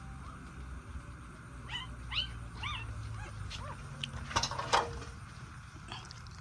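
A run of about six short, high squeaky animal calls, each rising then falling in pitch, followed a second later by two sharp clicks, over a steady low rumble.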